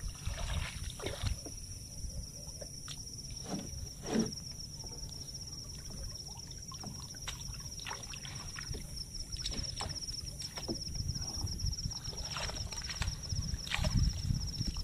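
Pond water sloshing and trickling against a small boat's hull, with scattered knocks from handling on board. Near the end, water splashes and streams off a scoop net as it is lifted out of the pond. A steady high chirring of insects runs underneath.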